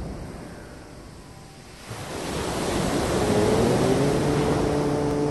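Ocean surf washing on a beach, swelling louder about two seconds in. From about three seconds, a low droning tone slides up in pitch and settles into a steady held note.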